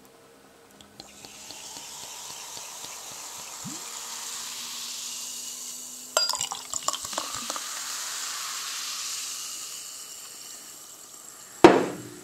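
Carbonated lemon soda poured from a glass bottle into a drinking glass, fizzing with a steady hiss. A few glassy clinks come about halfway through, and a single knock near the end as the bottle is set down on the table.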